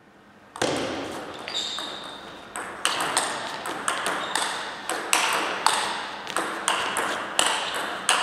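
Table tennis rally: the ball clicking off the rackets and the table in quick alternation, about two sharp hits a second, each ringing briefly in the hall. The hits start about half a second in.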